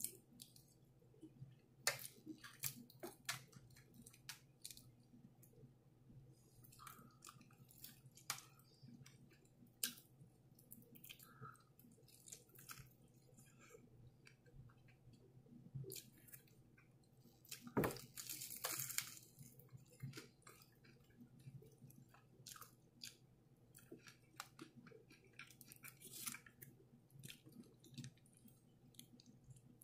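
Quiet close-up eating sounds: chewing and biting into crispy fried chicken and mac and cheese, with many small wet mouth clicks and crackles of the breading. There is one louder burst of noise about eighteen seconds in.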